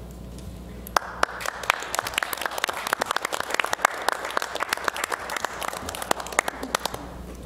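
Applause from a small group of people, a patter of separate hand claps that starts about a second in and stops near the end.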